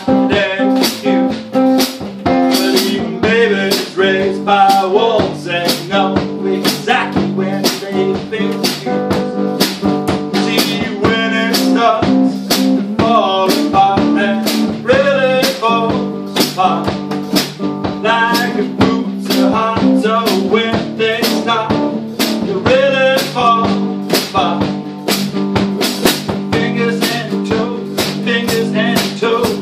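Small band playing live in a room: an acoustic bass guitar and a drum kit with cymbals keep a steady, quick beat under a wavering melodic lead line.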